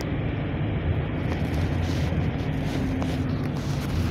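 Cabin noise of a GAZ Next minibus on the move: steady low engine drone and road rumble, with a few light rattles.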